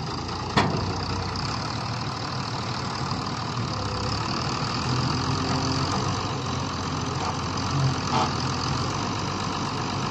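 Wheel loader's diesel engine running steadily while it works its bucket, with one sharp knock about half a second in.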